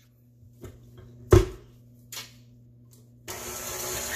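A few knocks and one loud clunk as a tilt-head stand mixer is handled and its whisk head lowered into the bowl, then a little over three seconds in the mixer's motor starts and runs with a steady whirr, the wire whisk beginning to beat egg yolks, sugar and lemon zest.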